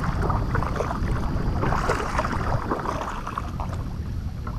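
Wind buffeting the microphone as a steady low rumble, with water splashing and lapping around a kayak. The splashing is strongest near the start and again about two seconds in, and it eases off toward the end.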